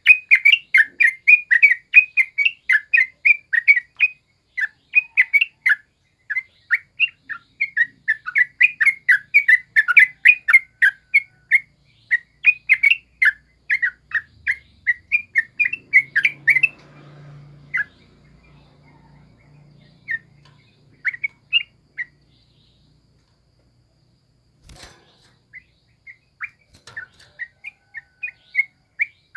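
Yellow-vented bulbul calling in a fast, continuous run of short chattering notes, several a second. Past the middle the notes thin out to a few scattered calls, stop for a couple of seconds with one sharp knock, then pick up again near the end.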